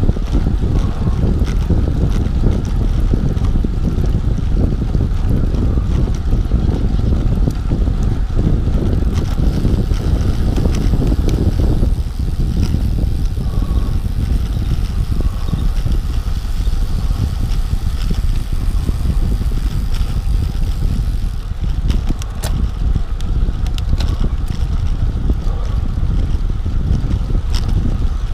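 Wind rushing over the microphone of a moving road bike: a steady low rumble, with a few sharp clicks near the end.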